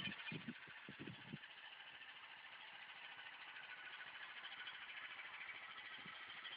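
Homemade tractor's Chinese engine idling steadily, heard faintly, with a few dull low thumps in the first second and a half.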